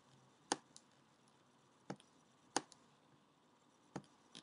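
Computer mouse clicking: sharp single clicks, several in quick pairs, spread a second or so apart over a faint hiss.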